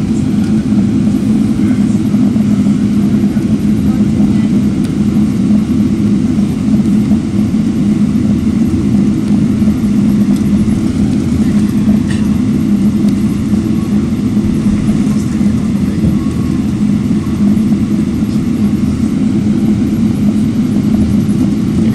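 Steady low drone of an airliner's jet engines, heard from inside the cabin while the plane taxis.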